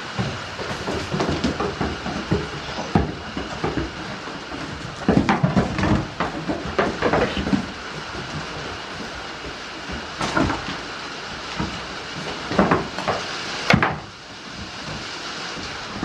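Goats feeding from a plastic bucket, their muzzles and horns knocking and rattling it and the pellets in clusters of clatters, over a steady hiss of rain.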